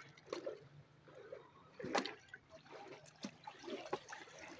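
Floodwater splashing and trickling, in irregular sloshes with one sharper splash about two seconds in.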